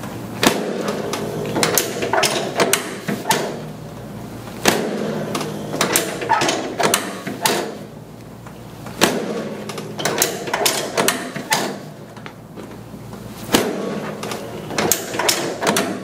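Groups of four to six sharp mechanical clicks and knocks, the groups coming about every four to five seconds, over a steady low hum.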